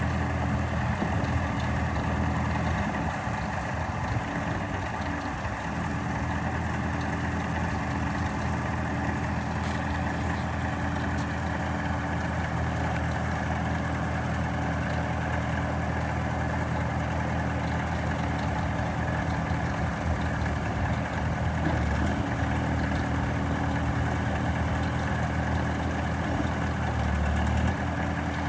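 Bobcat 863H skid steer's diesel engine running at a steady speed, with a low, even engine note.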